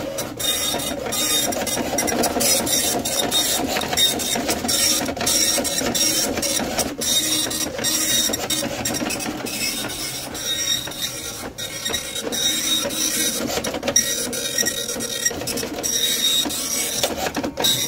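Okidata Pacemark 3410 dot-matrix impact printer printing its self-test page on tractor-fed continuous paper. The print head chatters steadily across the lines, with brief pauses now and then between passes.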